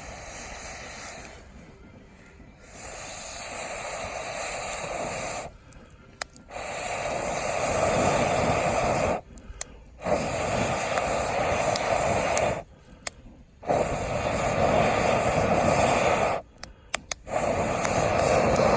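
Long rushing blows of air into a campfire, five in a row of about three seconds each, with a short pause for breath between them and getting louder as they go.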